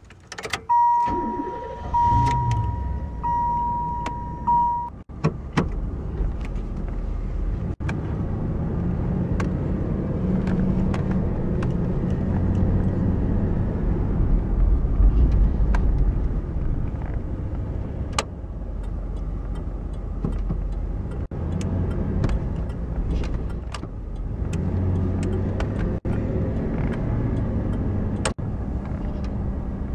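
Inside the cabin of a 1991 Chevrolet Caprice Classic with its 305 V8: a dashboard warning chime sounds for about four seconds as the key is turned and the engine starts. Then the car drives off, with steady engine and road noise and a few light clicks from the cabin.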